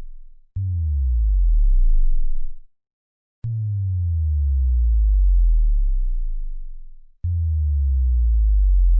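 Bass drop sound effects. Three separate hits, starting about half a second, three and a half and seven seconds in. Each is a sharp click followed by a deep synthesized sub-bass tone sliding downward in pitch, swelling and then fading, and the tail of an earlier drop fades out at the very start.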